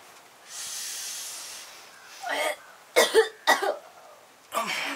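A steady hiss lasting about a second and a half, then a person coughing in several short bursts, the coughing of someone who has just sniffed a pungent 'scent'.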